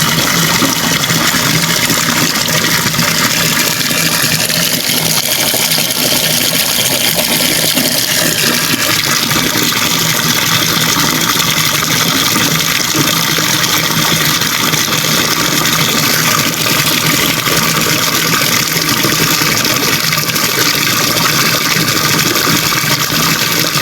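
Water running steadily from a tap, a constant rushing hiss.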